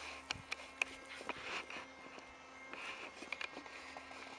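Faint, irregular ticks and crunches of gravel underfoot, over a faint steady hum.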